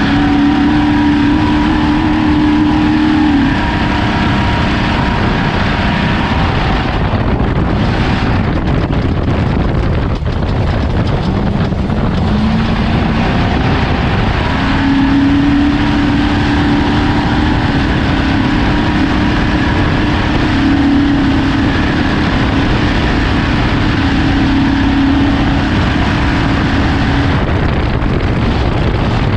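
Off-road race vehicle's engine running at speed under heavy, steady noise. The engine note drops away a few seconds in, then climbs back up around the middle and holds.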